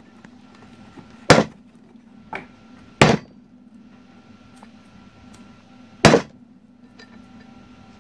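Rubber mallet blows driving a wheel bearing into the hub of a steel brake disc: three hard, sharp strikes about a second, three seconds and six seconds in, with a lighter knock between the first two.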